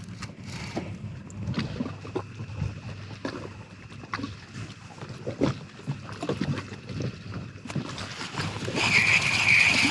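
Irregular knocks and bumps of handling on a fishing boat, under a faint steady high chirring of night insects. About nine seconds in, a louder, evenly pulsing insect call starts.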